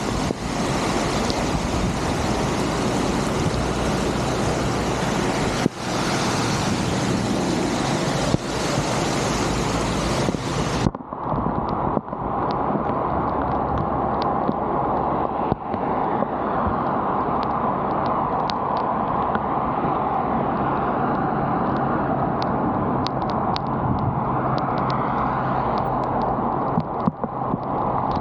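Steady rush of draining water from an unclogged culvert, full and hissing at first. About eleven seconds in it cuts abruptly to a narrower, gurgling flow with scattered small splashes.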